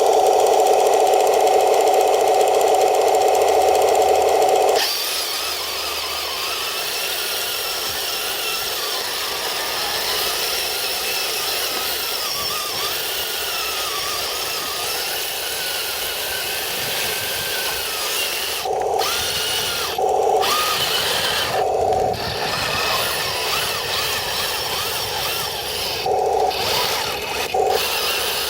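RC M26 tank on metal tracks driving off road. A loud, steady motor-and-gear whine cuts off about five seconds in, giving way to a rough, noisy rattle with a wavering tone. Near the end, short whining spurts start and stop several times.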